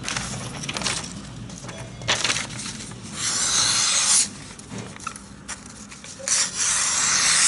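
Bushcraft knife blade shaving strokes down a wooden stick to carve a feather stick, a rasping scrape with each cut. There are about four strokes, the two longest and loudest lasting about a second each, around three seconds in and near the end.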